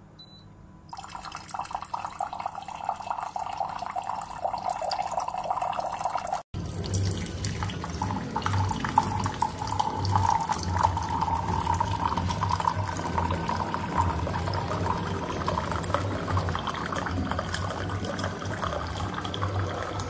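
FunHom 3L instant hot water dispenser pouring a thin stream of hot water into a ceramic mug: a steady splashing pour that starts about a second in, with a low pulsing hum underneath in the later part.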